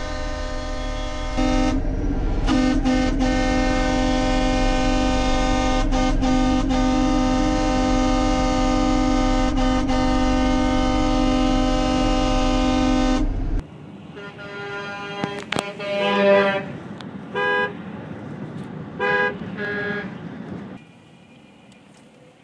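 Truck horns honking from a passing convoy: one long, steady blast held for about thirteen seconds that stops abruptly, followed by several short toots.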